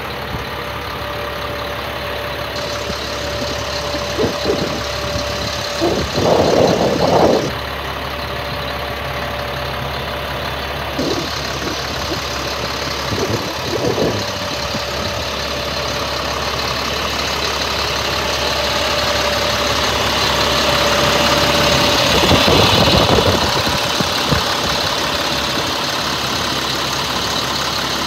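Engine of a 2005 GMC C7500 box truck idling steadily, with a faint steady whine over it. The sound grows louder toward the end, with a couple of louder rushes of noise about six seconds in and again around twenty-two seconds.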